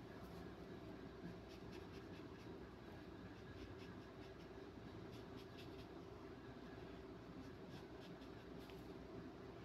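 Faint, short, irregular scratches of a paintbrush dabbing and stroking paint onto paper, over a steady low background hum.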